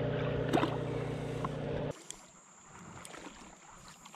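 A small splash of water as a smallmouth bass is released by hand into shallow creek water, over a steady rushing noise on the microphone. The rushing stops abruptly about two seconds in, leaving a much quieter outdoor background with a steady high-pitched tone and a few light ticks.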